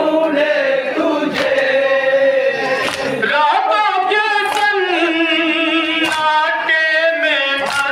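A noha sung without instruments by a male reciter, answered in chorus by a group of mourners. A sharp slap of hands striking chests in unison (matam) beats time about every one and a half seconds, five strokes in all.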